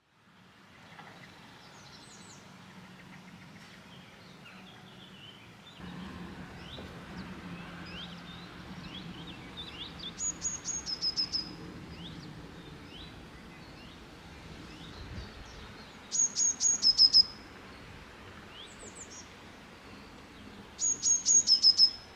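Birdsong outdoors. One bird repeats a short, loud phrase of quick high notes that step down in pitch, three times about five seconds apart, while other birds chirp softly in the background.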